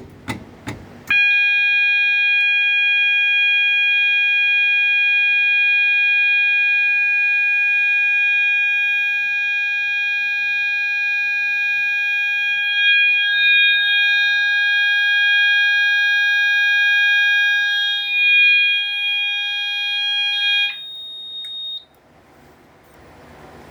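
A few clicks as a Notifier BNG-1 fire alarm pull station is pulled. About a second in, a fire alarm sounder starts one loud, steady, continuous tone that lasts about twenty seconds and cuts off suddenly. A fainter, higher beep carries on about a second longer, then stops.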